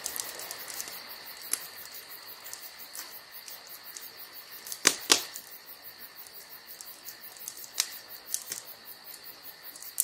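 Male superb lyrebird in courtship display, giving a run of sharp mechanical clicks over a steady high trill. The loudest click comes about five seconds in, and another near the eighth second. Such clicks are typical of the lyrebird's display song and its mimicry of camera shutters.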